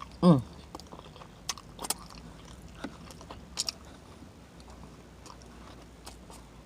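Close-up mouth sounds of a person eating: chewing with wet lip smacks and clicks. A brief loud vocal sound falling in pitch comes right at the start, then several sharp smacks spread through the rest.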